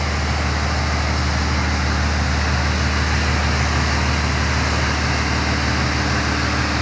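Pressure washer's engine running steadily with a low hum, under the hiss of the high-pressure spray striking house siding.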